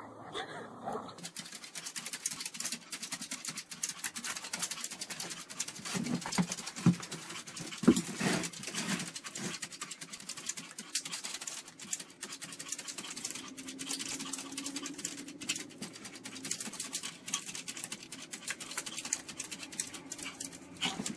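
A small fluffy white dog scratching and pawing at a glass door with its claws: rapid clicking and scraping, with a few short yelps and a longer whine partway through.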